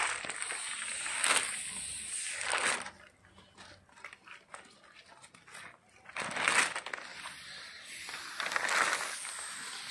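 Pump-up hand pressure sprayer hissing in short bursts as it mists fungicide solution onto a rubber tree's tapping panel, with a quieter gap of a few seconds in the middle; the plastic rain-guard sheet rustles as it is lifted.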